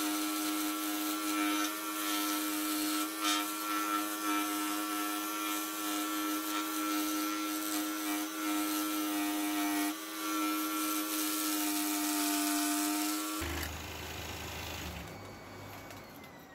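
Pégas 21-inch scroll saw cutting a wooden tree slice with a fine fretsaw blade, a steady machine hum with the blade rasping through the wood. About thirteen seconds in the saw is switched off, and it fades out with a falling tone as it runs down.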